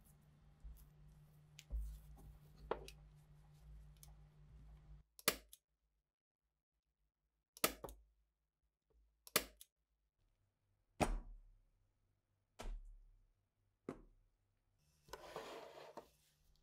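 Hand staple gun firing staples through speaker grille cloth: about six sharp snaps a second or two apart, after some soft rustling of the cloth. Near the end there is a short scraping rasp.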